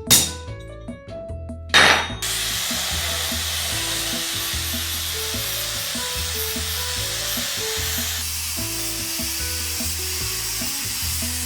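Two sharp knocks, then a steady hiss starts about two seconds in and carries on evenly, over background music.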